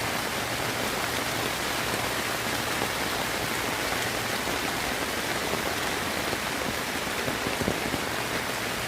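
Steady heavy rain falling, an even hiss of drops with a few sharper, louder drop hits near the end.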